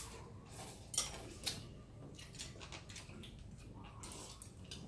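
Chopsticks and spoons clinking and tapping against ceramic soup bowls as people eat noodle soup, with two sharper clinks about a second and a second and a half in.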